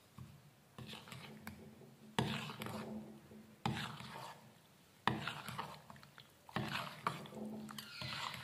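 Steel spoon stirring and scraping in a steel bowl, mixing milk powder into warm sugar water. It goes in repeated strokes, about one every second to second and a half, each starting with a clink of spoon on bowl.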